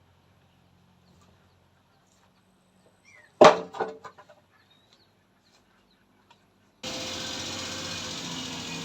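A single loud knock about a third of the way in, followed quickly by a few smaller knocks. Near the end a steady motor-like running noise cuts in abruptly.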